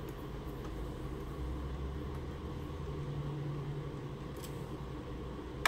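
Steady low hum with faint ticks of a hand screwdriver backing screws out of the plastic stand cover of an all-in-one computer, and one sharp click near the end.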